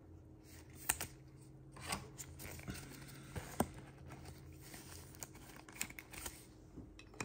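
Faint rustling and scattered light clicks of plastic being handled as a trading card is slid into a clear sleeve and a rigid plastic toploader.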